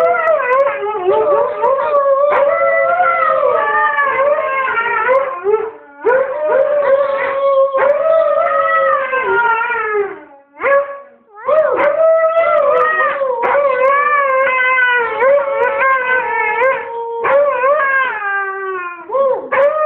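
A husky howling in long, wavering howls while a man howls along with it, their two voices overlapping, with a few brief breaks for breath.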